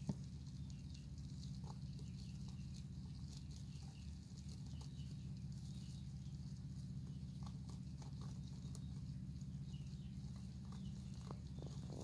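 Wild baby rabbits shifting and scratching in dry hay in a cardboard box: faint scattered rustles and small scratching taps over a steady low hum, with one sharp click right at the start.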